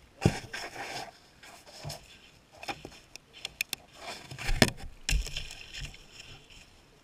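Irregular muffled knocks and thumps picked up underwater by a GoPro in its waterproof housing beneath river ice. There is a sharp knock just after the start, scattered clicks in the middle, and a louder cluster of knocks about four and a half to five seconds in.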